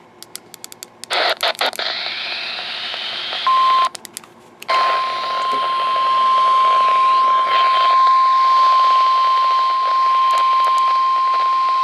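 A few faint clicks, then radio hiss, then the NOAA Weather Radio warning alarm tone, a steady single tone near 1,050 Hz. It sounds for a moment, drops out briefly, then holds for about eight seconds. It is the attention signal that comes before a new warning broadcast.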